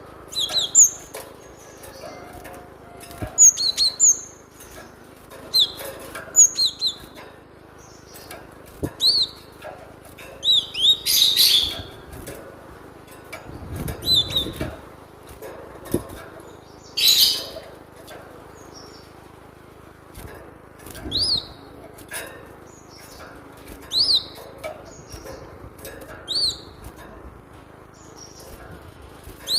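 Cinereous tit (glatik batu) calling: short high chirps in quick groups of two or three every second or two, with two harsher, noisier calls about a third and halfway in.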